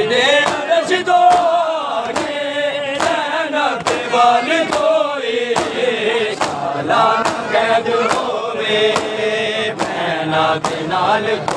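A crowd of men chanting a Punjabi noha in unison, loud and steady. Under the chant runs a steady beat of chest-beating (matam), hands slapping chests roughly once a second.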